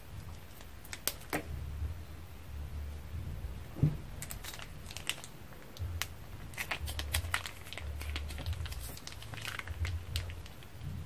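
Clear plastic piping bag crinkling and crackling as it is handled and squeezed, with a couple of scissor snips about a second in as its tip is cut. A single dull knock about four seconds in is the loudest sound.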